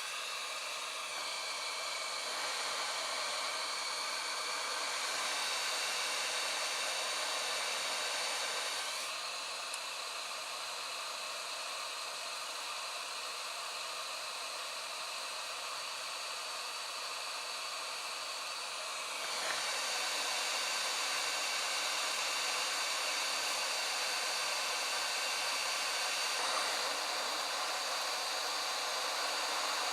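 Hot-air rework station (8858) blowing steadily, a rushing hiss with a faint high whine, heating the pins to melt the solder for a replacement USB connector. The airflow drops somewhat about nine seconds in and comes back up about nineteen seconds in.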